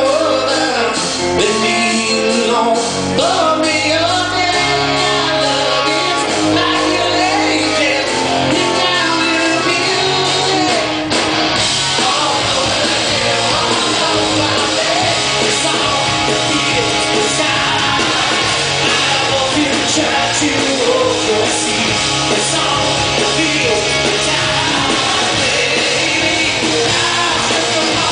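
Live rock band in concert: a male lead singer over electric guitar, bass guitar and drums, heard from the audience in a large hall. About eleven seconds in the band comes in louder and fuller.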